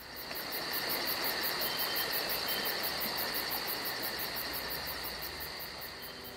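Insects chirping in a steady chorus: a high continuous trill with a faster, evenly pulsing chirp above it, about five pulses a second, fading in at the start.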